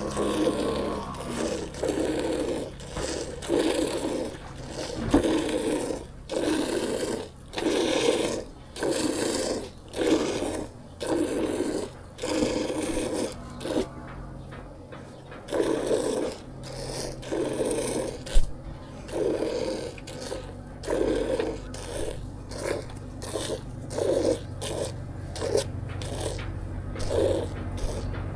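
Hand milking a buffalo: streams of milk squirting into a container in a regular rhythm of about one squirt a second, pausing briefly about halfway through and then picking up a quicker pace near the end.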